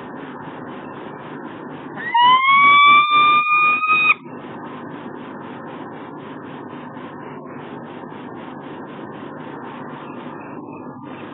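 Peregrine falcon giving one long call of about two seconds, sliding up at the start and then held steady, over a steady background hiss.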